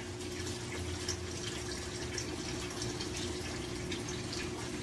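Water trickling and dripping in a shallow fish-breeding tank, with small scattered drips over a steady low hum.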